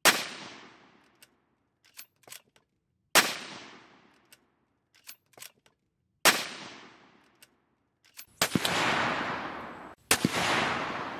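Three rifle shots from a bolt-action CZ 527 carbine in .223 Remington, about three seconds apart, each ringing out and fading, with small clicks of the bolt being worked between them. Near the end come two longer blasts that die away slowly.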